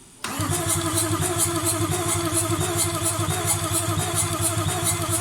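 Toyota 1VD-FTV V8 diesel turned over on its starter with the injectors disconnected, so it cranks without firing to build oil pressure in the freshly rebuilt engine. The cranking cuts in suddenly just after the start and runs steadily with an even pulsing.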